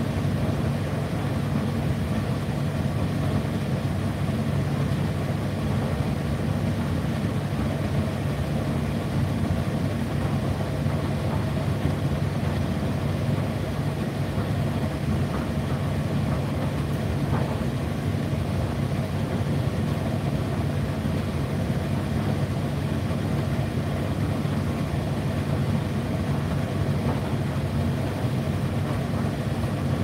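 An Indesit IDC8T3 8 kg condenser tumble dryer running mid-cycle: a steady, even hum from its motor as the drum turns.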